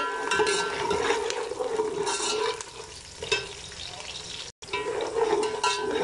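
Sliced onions sizzling as they fry in hot ghee in a metal pot, stirred with a metal slotted spoon that scrapes against the pot. The sound breaks off for a moment a little past the middle.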